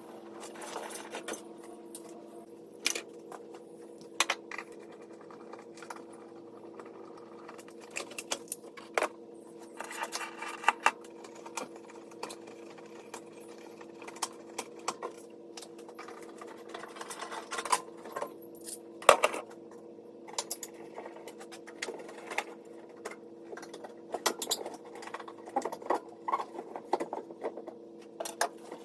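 Hand tools and wiring being worked on a car: irregular metallic clicks, clinks and clatters, with a sharp knock about two-thirds of the way through, over a steady low hum.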